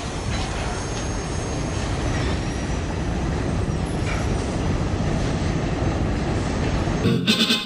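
Freight train of tank cars rolling past on the rails: a steady noise of steel wheels on track, with faint high-pitched wheel squeal. Music with plucked strings cuts in near the end.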